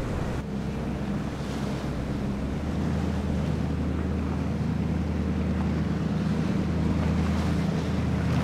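Speedboat engine running at low speed, a steady low hum that starts about half a second in and grows slightly louder as the boat comes closer, with wind on the microphone.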